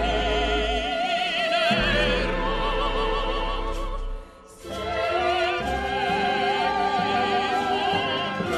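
Operatic singing with a wide vibrato over orchestral accompaniment, with a low held bass note under the first half. About four seconds in the music briefly drops away, then the voice and orchestra resume.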